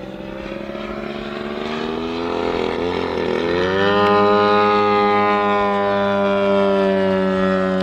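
Desert Aircraft DA-150 twin-cylinder two-stroke gas engine of a 46% scale RC biplane in flight, growing louder, its pitch rising about halfway through and then holding steady.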